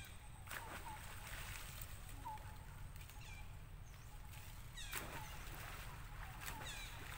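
Faint high-pitched animal calls: short runs of quick chirps repeated every couple of seconds, with a few single chirps between them, over a low steady rumble.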